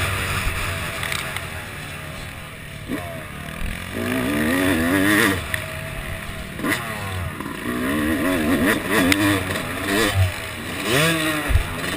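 Yamaha YZ250 two-stroke motocross engine revving up and down in repeated surges as the rider works the throttle and gears.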